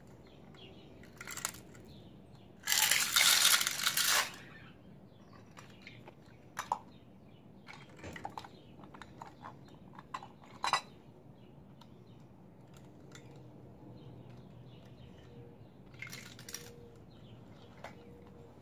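Plastic toy front-loader garbage truck and toy dumpster being handled by hand: about three seconds in, a loud rattle of small loose trash pieces lasting about a second and a half, then scattered light plastic clicks and taps.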